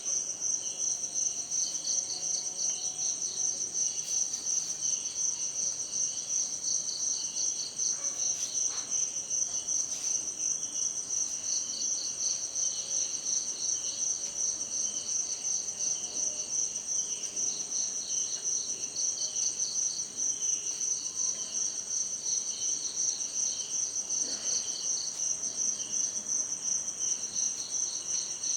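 Chorus of insects, crickets or similar, calling continuously: one steady high trill with several pulsing chirps just below it, overlapping and unbroken.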